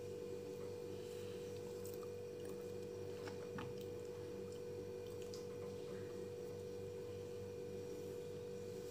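Faint steady hum: one even tone with a lower buzz beneath it, and a few faint soft clicks in the middle.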